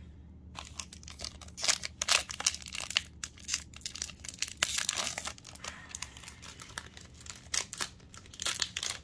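Foil wrapper of a trading-card booster pack crinkling and tearing as it is opened, a dense, irregular run of crackles.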